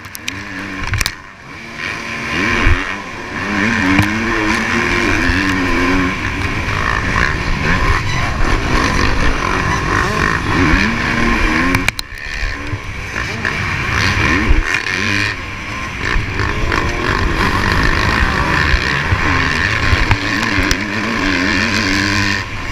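Motocross dirt bike engine heard onboard at race pace, revving up and falling away over and over as the throttle opens and closes, with a few brief dips where it backs off.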